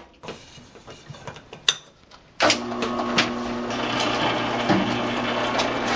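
A Central Machinery benchtop drill press, belt-set to about 650 RPM, starts abruptly about two and a half seconds in after a few faint clicks, then runs steadily with a motor hum, spinning a light foam-and-PVC laser rig in its chuck.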